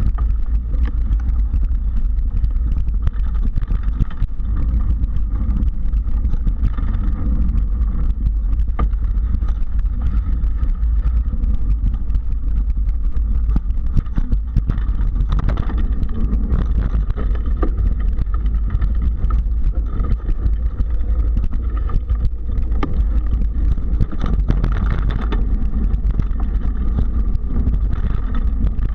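Mountain bike ridden along a dirt singletrack: a steady deep wind rumble on the microphone, with tyre noise and frequent clicks and rattles from the bike over bumps in the trail.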